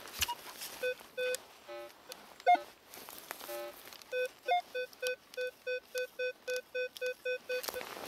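Metal detector beeping over a buried target: a few separate beeps, then a steady run of short, evenly spaced beeps about three a second from about halfway in. There is one sharp knock about two and a half seconds in.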